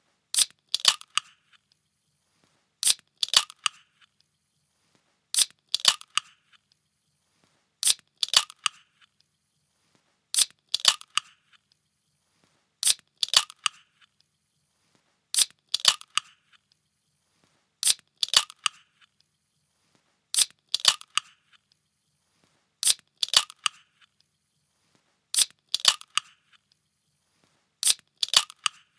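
A can being opened: a quick pair of sharp cracks repeating about every two and a half seconds, the same sound looped over and over.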